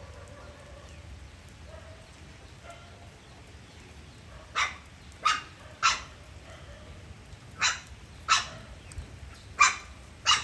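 A dog barking: seven short, sharp barks in three quick groups, beginning about halfway through.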